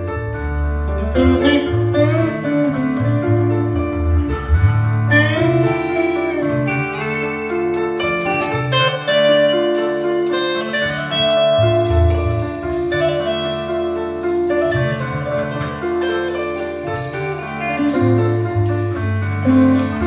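Live rock band playing an instrumental passage: sustained bass guitar notes under electric keyboard and guitar lines, with drums and cymbal strikes joining partway through.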